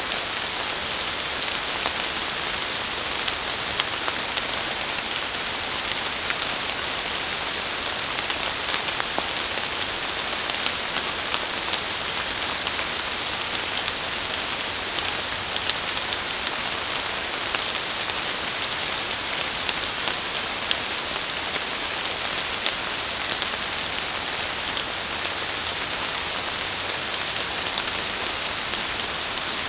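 Steady rain falling on forest foliage, a constant patter with many single drops ticking on leaves throughout.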